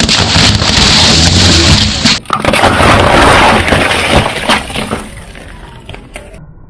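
Full aluminium cans of cola crushed one after another under a car tyre: dense crackling and crumpling metal as the cans burst, with a loud hiss of fizzing soda spraying out. There is a short break about two seconds in, and the sound dies down over the last couple of seconds.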